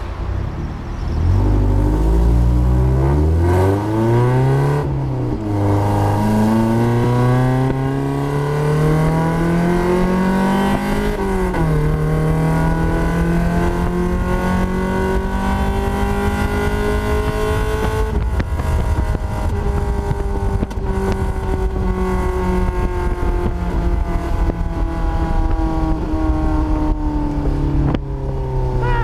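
1990 Mazda Miata 1.6 four-cylinder with 4-2-1 headers and a straight-pipe exhaust, pulled hard through the gears. The engine note climbs, drops at two upshifts, climbs slowly again, then falls steadily as the car slows.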